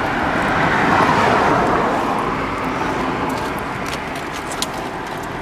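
A steady rushing noise like a road vehicle passing, swelling about a second in and slowly fading, with a few faint clinks of metal being handled.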